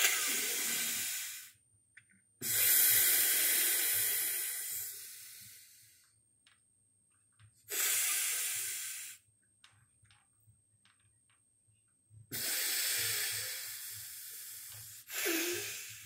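A man sniffing hard at a bar of soap pressed to his nose: five long, loud breaths with short pauses between them, each starting sharply and fading away.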